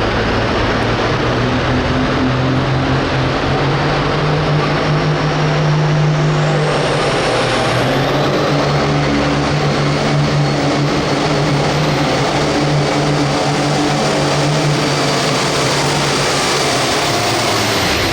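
Hot farm diesel pulling tractor's engine running loud and steady at high revs under load during a pull, its pitch dipping briefly about seven seconds in and then holding again.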